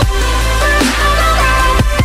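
Electronic background music with a steady heavy bass line, a synth melody and a beat.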